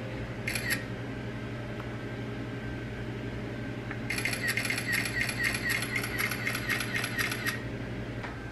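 Frothed milk pouring from a glass measuring cup into a mug of tea: a quick, even run of small ticking splashes lasting about three and a half seconds, starting about four seconds in, over a steady low hum.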